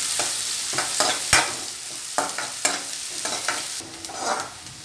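Chopped onions and curry leaves sizzling in hot oil in a steel kadai, with a metal spatula scraping and knocking against the pan at an uneven pace as they are stirred. The sizzle drops quieter about four seconds in.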